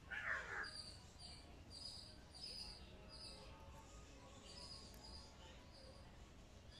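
Birds calling: one loud harsh call just after the start, then a steady run of short, high chirps a little under two a second.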